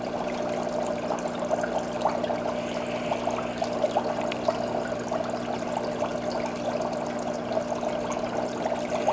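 Reef aquarium water circulation: a steady trickle and splash of running water with small crackles, over a steady low hum.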